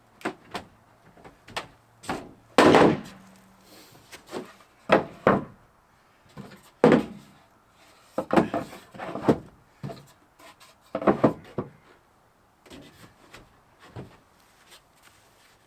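Irregular knocks, bangs and scraping from hands-on installation work on a truck camper, with the loudest bangs about three and seven seconds in and quieter taps near the end.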